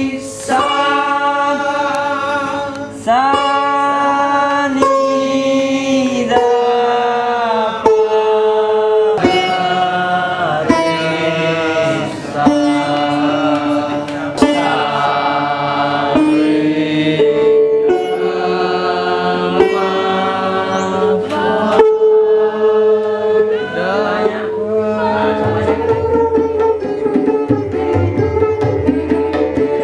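Sitar playing a melody with sliding pitch bends between notes, over a steady drone in the second half.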